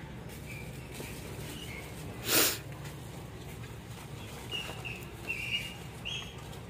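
Small birds chirping in short high notes, several in the second half, over a steady low background hum, with one brief loud burst of breathy noise, like a sneeze, about two seconds in.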